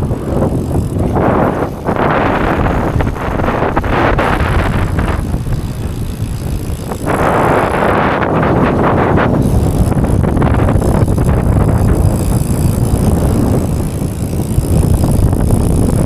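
Strong gale-force wind buffeting the microphone: a loud, low rumble of wind noise that swells and eases in gusts.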